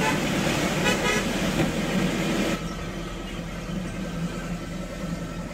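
Road traffic on a wet road: a steady rush of car and tyre noise, with a short horn toot about a second in. The noise drops off suddenly about two and a half seconds in.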